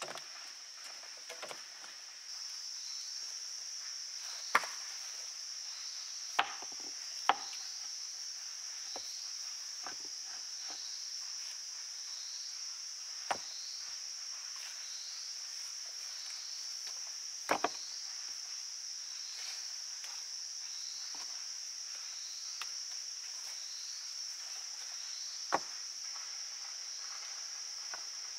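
Loose stones clacking together as they are set down and stacked by hand, sharp knocks about half a dozen times, the loudest near the start and about seventeen seconds in. Under them a steady high drone of insects with a faint chirp repeating about once a second.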